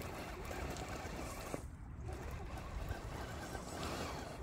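Wind rumbling on the microphone, with the faint crunch and clicks of an Absima Sherpa RC crawler's tyres working slowly over gravel and stones.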